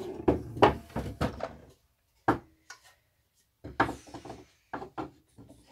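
Wooden soap mold being taken apart from a loaf of cold process soap: a run of sharp wooden knocks and clatters in several short clusters.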